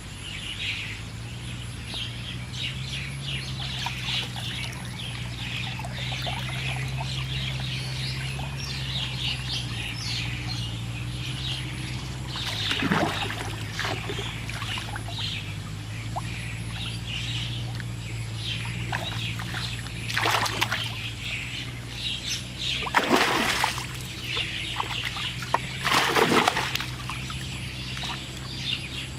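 Small birds chirping over a steady low hum, broken by several loud splashes of water in a pond, the biggest about halfway through and then a few more close together near the end.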